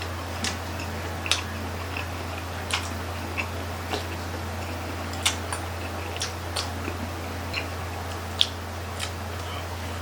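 Mouth sounds of people chewing grilled chicken intestine (isaw) off barbecue sticks: irregular wet clicks and smacks, one or two a second, over a steady low hum.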